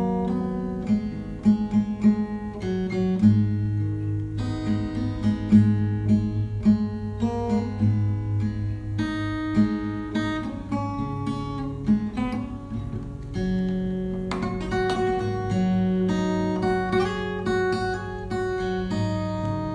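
Background music: plucked acoustic guitar playing a steady run of notes over held bass notes.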